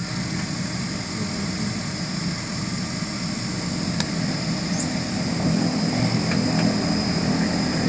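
DHC-6-300 Twin Otter's two Pratt & Whitney Canada PT6A turboprop engines and propellers running, heard from inside the cabin: a steady deep drone with a thin high turbine whine above it, growing slightly louder after about five seconds. A single click sounds about four seconds in.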